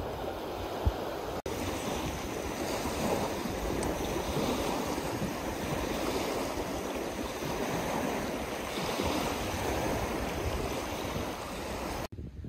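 Waves washing onto a shore with wind buffeting the microphone, a steady rushing noise with a low rumble. A single thump comes about a second in.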